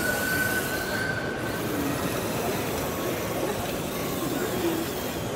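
A steady mechanical running noise with a thin, high whine during the first second and a half, from the small electric drive of an RC model tractor.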